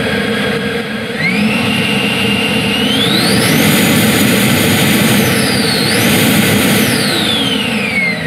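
Electric ducted fan of a large RC jet model run up on the ground. Its whine climbs in two steps to a high pitch, holds with a short dip and recovery, then winds down near the end.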